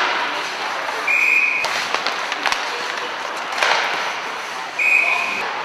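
Two short, steady, high whistle notes, about three and a half seconds apart, over the hum of an ice hockey rink with scattered sharp knocks of sticks and puck.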